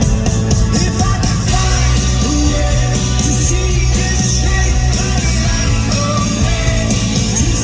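Rock band playing live at full volume, a singer's voice over the full band.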